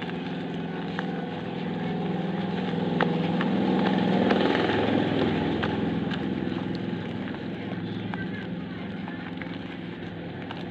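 A motor vehicle's engine going by: a steady hum that grows louder to about four seconds in, then fades away. A few light clicks sound over it.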